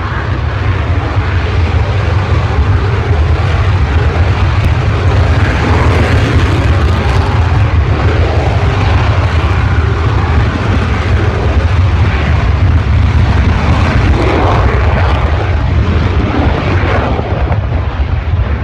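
JAS 39 Gripen fighter jet's single turbofan engine running loud: a deep steady rumble under a broad hiss that slowly swells and wavers.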